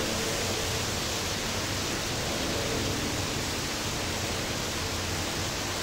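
Steady, even hiss of background noise. No distinct scraping from the stone on the blade stands out from it.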